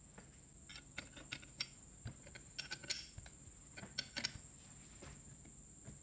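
Faint metal clicks and taps as a bolt is fitted and turned by hand in the handle joint of an electric drill, about a dozen small clicks in uneven clusters over a few seconds.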